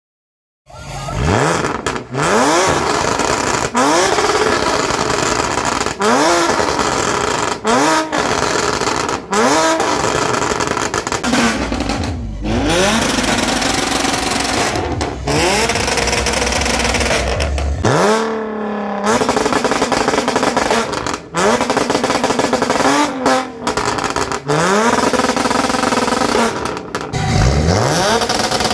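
Audi A7's exhaust, very loud, as the engine is revved hard again and again: about a dozen quick revs, roughly one every two seconds, each rising sharply in pitch and then dropping away, with one longer rev just past the middle.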